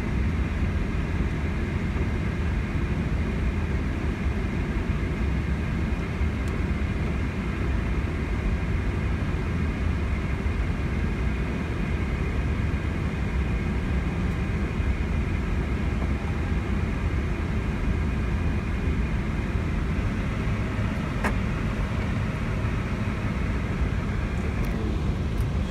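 Steady cockpit noise of an Airbus A321neo taxiing with its engines at idle: an even low rumble with a faint steady high hum above it.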